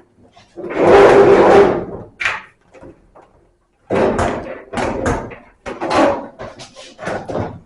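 Sheet-metal clatter of a clothes-dryer drum being handled and fitted into the cabinet: a loud rumbling scrape about a second in, then a string of knocks and bumps.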